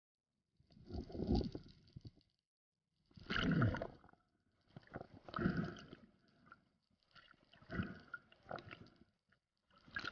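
Rhythmic pulses of rushing, churning water heard underwater, about one every two seconds: a freediver's fin strokes as he swims with a speared grouper.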